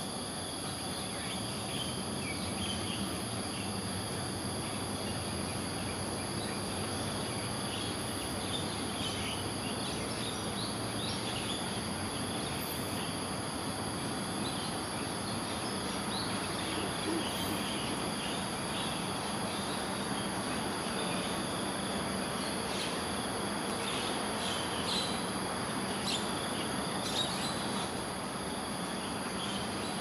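Steady high-pitched chorus of insects trilling without a break, with scattered short chirps that come more often in the second half, over a faint low steady hum.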